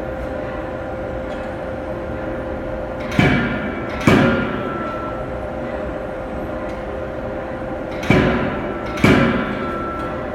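Anyang 25 kJ CNC hydraulic forging hammer striking the workpiece: two heavy blows about a second apart, then two more about four seconds later, each ringing out briefly. A steady machine hum runs underneath.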